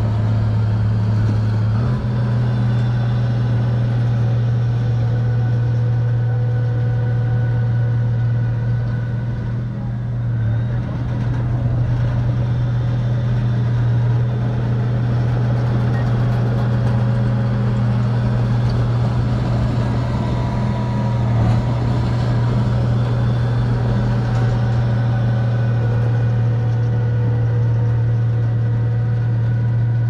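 Crawler bulldozer's diesel engine running steadily as it pushes a load of sand, a constant low hum with a brief dip about ten seconds in.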